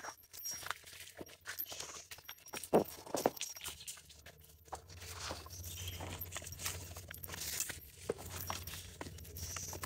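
Footsteps pushing through leafy undergrowth: leaves and brush rustling with a run of twig and leaf crackles, and one louder thump about three seconds in.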